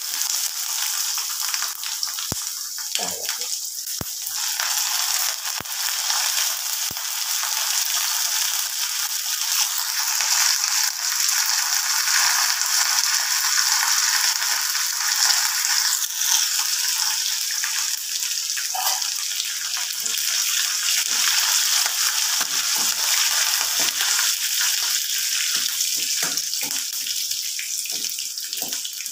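Shallots, dried red chillies, green chillies and curry leaves sizzling in hot oil in a metal kadai: the tempering for a curry. A spoon scrapes and knocks against the pan in the later part.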